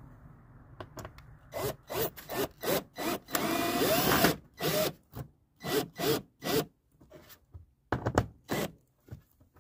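Power drill driving 2.5-inch screws through a light-mounting bracket into the house wall, run in short bursts of the trigger about two a second, with one longer run whose pitch bends up and down about three to four seconds in.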